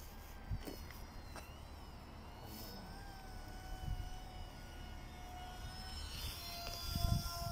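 Faint high whine of a small RC flying wing's 1103 8200kv brushless motor and propeller in flight, rising and falling in pitch as the plane changes throttle and passes by.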